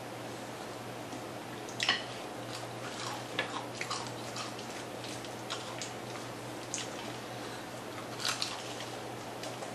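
Biting and chewing crispy fried chicken wings close to the microphone: scattered crunches and wet mouth clicks, the loudest bites about two seconds in and again near the end.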